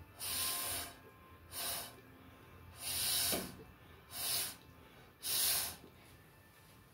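Five short, hard puffs of breath blown onto wet acrylic paint, each a brief hiss of air, the way a Dutch pour pushes the paint across the canvas.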